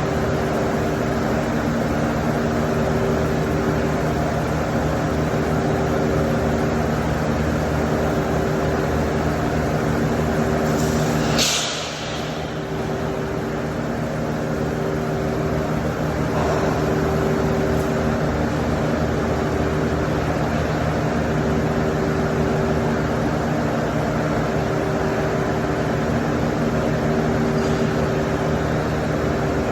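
MIG welding on stainless steel: a steady buzzing hum with rough crackle underneath, broken by a short hiss about eleven seconds in.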